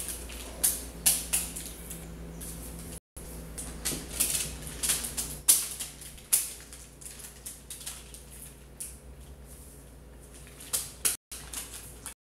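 Paper receipts and banknotes stuck to skin with honey, crackling and rustling in irregular bursts as hands press and rub over them. A few crackles stand out louder, and the audio cuts out briefly a few times.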